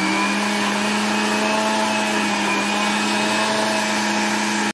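Electric countertop blender running at a steady full speed, puréeing a handful of fresh leaves with water: a constant motor hum over the churning of the jar.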